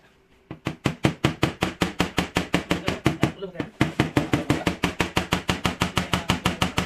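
Hand scraper worked in quick short strokes over a car's sheet-metal quarter panel, about six or seven sharp scrapes a second, starting about half a second in with a brief pause midway.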